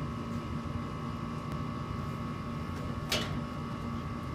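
Steady mechanical hum with a constant high whine running underneath, and one sharp click about three seconds in.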